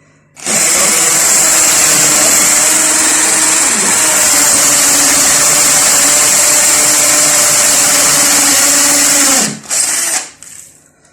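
Power drill running steadily at high speed for about nine seconds, with a brief dip in pitch partway through, then cutting off.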